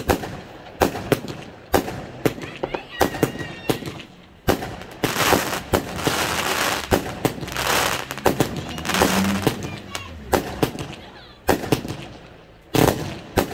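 A Bigstar Vampire's Revenge 30-shot firework cake firing: a rapid string of sharp shots and bursts, with a dense hiss of crackling stars through the middle.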